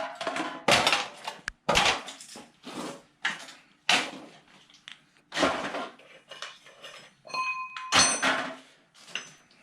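Irregular metal-on-metal clanks, about ten strikes at roughly one a second, with one strike a little after seven seconds ringing on.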